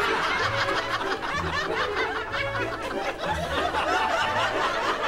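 Several people laughing and giggling together over upbeat background music with a steady bass beat.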